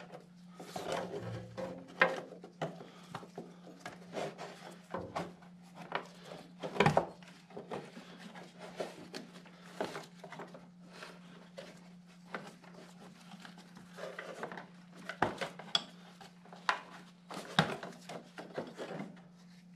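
Metal tools and parts being handled during repair work: an irregular run of clinks, taps and knocks, the loudest about 2 and 7 seconds in, over a steady low hum.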